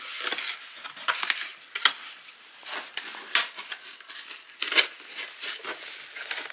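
Cardboard shipping box being pulled open by hand: flaps tearing and scraping, with the packing inside crinkling, in short irregular bursts.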